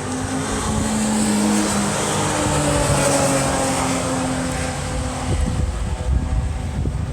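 Race car engines running at a distance, their tone slowly falling in pitch as they move away. Gusty wind rumbles on the microphone near the end.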